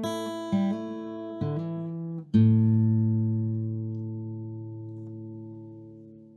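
Guitar music: a few plucked chords, then a last, loudest chord a little over two seconds in that rings on and slowly fades away.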